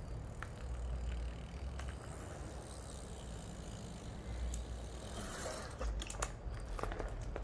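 Fat bike being ridden: a steady low rumble from its tyres and wind on the microphone, with light clicks. About five seconds in there is a brief, loud, very high-pitched squeak lasting about half a second, followed by a few sharp clicks.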